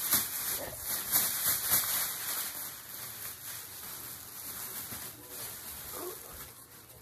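Plastic bag rustling and crinkling as yarn is rummaged through, busiest in the first couple of seconds and then thinning to faint, scattered rustles.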